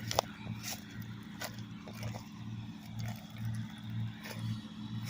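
Combine harvester's engine running at a distance, a low hum that swells about twice a second, with a few faint clicks over it.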